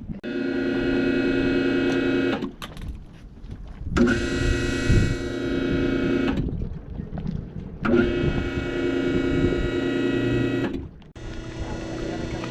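Electric winch motor of a boat's davit crane running in three bursts of two to three seconds each, a steady whine, as it moves an outboard motor on the hook.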